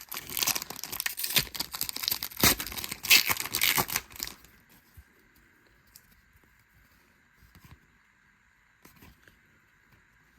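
A baseball card pack's wrapper being torn open and crinkled for about four seconds, then near silence with a few faint ticks.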